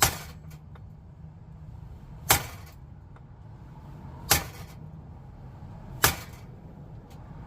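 Four heavy hammer blows on steel, about two seconds apart, each with a brief metallic ring, driving a seized ball joint out of the truck's front end.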